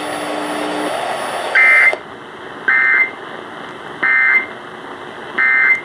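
Emergency Alert System end-of-message code over AM radio: short bursts of shrill digital data tones, four in all, about a second and a third apart, starting about a second and a half in. Before the first burst there is a steady radio hiss that drops away.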